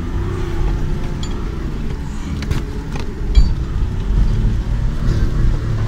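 Off-road 4x4 driving slowly over a rutted, muddy trail, heard from inside the cabin: a steady low engine and drivetrain rumble with a few knocks as the body jolts over the ruts, the loudest about three and a half seconds in.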